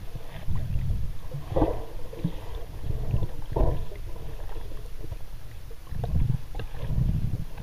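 Muffled underwater noise picked up through a camera's waterproof housing: a low rumble of moving water with a few short swishes and surges.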